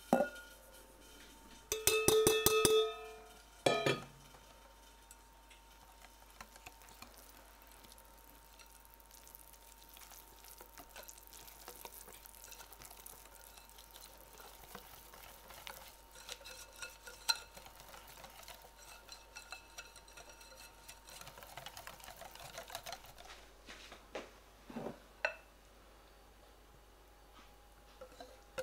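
Wire whisk stirring melted chocolate in a glass mixing bowl, clinking against the glass with a ringing tone about two seconds in, then one more knock. After that, faint scraping and light taps of kitchen utensils.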